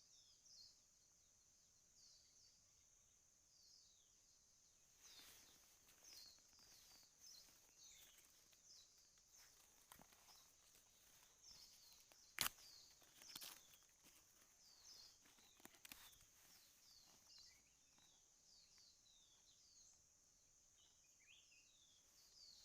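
Faint outdoor ambience: a steady high insect drone with small birds chirping over and over. From about five seconds in come scattered light rustles and clicks, with one sharp click about halfway through.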